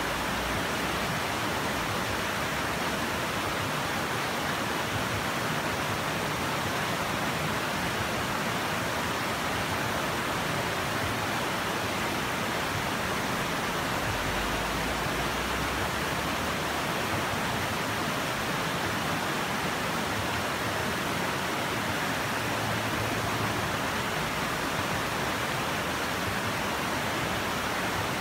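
Shallow mountain river rushing steadily over rocks and boulders in white-water rapids.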